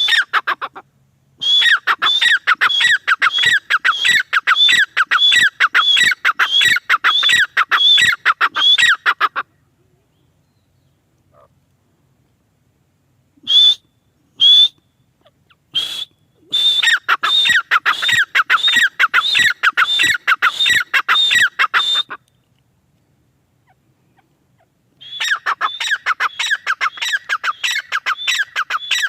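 Grey francolin (teetar) calling in long runs of rapidly repeated shrill notes, about two a second, each note sliding down in pitch. There are three runs, with pauses of a few seconds between them and a few single notes in the second pause.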